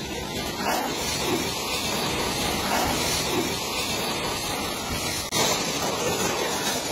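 High-pressure washer jet spraying onto a truck's foam-covered cab and grille, a steady hiss of water with a brief break about five seconds in.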